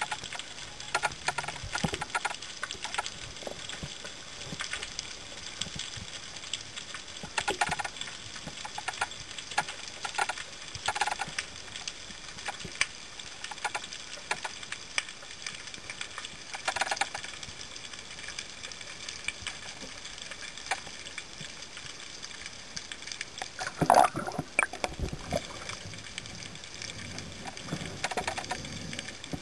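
Underwater sound picked up by a diver's camera in its housing: a steady hiss with scattered clicks and knocks, and one louder knock with a rumble about 24 seconds in.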